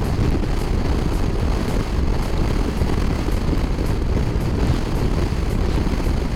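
Strong wind rushing and buffeting on a motorcycle-mounted camera's microphone while riding at highway speed, a steady loud rush with the motorcycle's running sound buried in it.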